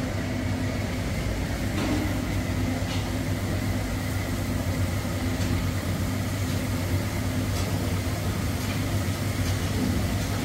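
A steady low mechanical hum throughout, with the faint sizzle of jalebi batter frying in hot oil in an iron kadai and a few light ticks.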